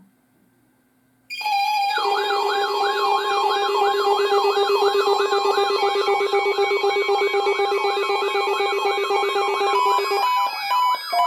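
Synthesized emergency-alert warning tone for a required weekly test of the weather alert system. It starts about a second in as steady tones, then becomes a warble rising and falling about three times a second over a steady low tone. Near the end the low tone drops out and the sound turns to short beeping tones.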